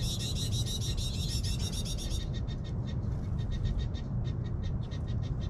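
A rapid, high-pitched trill of chirps from a small animal, about ten a second. It drops off sharply about two seconds in, and fainter chirps go on after that, over a steady low rumble.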